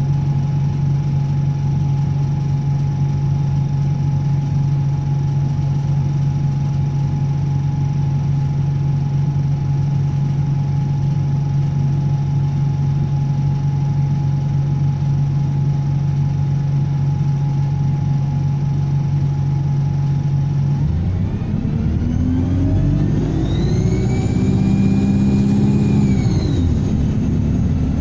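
Bus diesel engine idling steadily with a constant thin whine, then pulling away: the engine note rises and a high turbo whistle climbs with it, holds briefly and falls back as the bus eases off.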